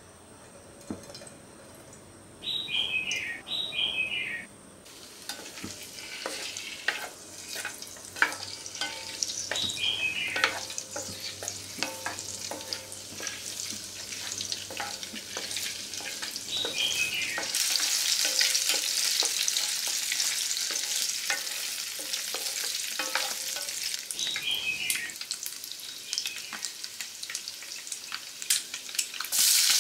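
Peeled boiled quail eggs frying in hot oil in a nonstick pan, sizzling with scattered clicks as they are stirred and rolled with a wooden spatula. The sizzle grows louder about halfway through. A few short, high, falling chirps sound now and then, loudest near the start.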